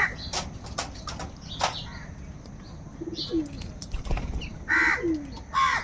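Crows cawing: harsh calls right at the start and twice near the end, with scattered sharp clicks and a few short low cooing notes that slide downward in between.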